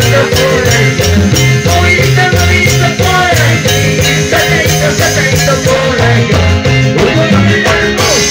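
Loud Andean zapateo dance music with a steady quick beat, shaker-like percussion and pulsing bass notes.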